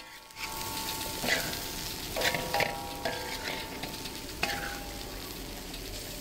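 Rice frying and sizzling in a steel plow-disc pan while a metal spatula stirs and scrapes it against the pan, in a string of quick scraping strokes.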